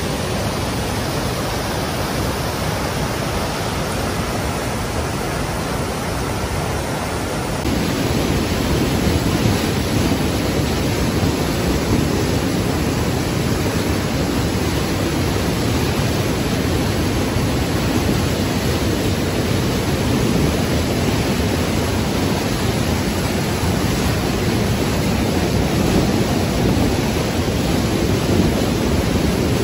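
White water of a mountain river rushing down a cascade over smooth granite slabs, a steady loud rush that grows louder and fuller about eight seconds in.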